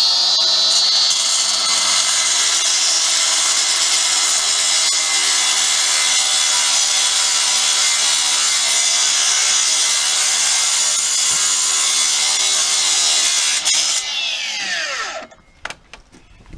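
DeWalt cordless rotary cut-off saw with a segmented blade cutting through the deadbolt of an Adams Rite mortise lock in an aluminium storefront door, running steadily at full speed. Near the end the saw is released and the blade winds down in a falling whine.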